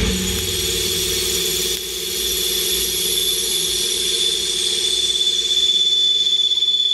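Nakamura WT300 CNC turning centre spinning a crankshaft at speed: a steady machine hum with a high whine and hiss above it.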